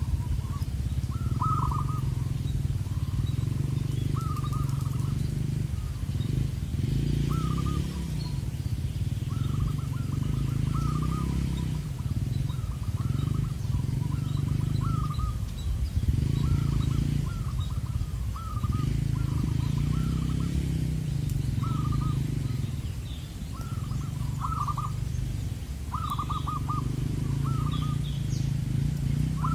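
Zebra doves (perkutut) cooing: short trilled coos repeated about once a second. A low rumble swells and fades underneath every couple of seconds.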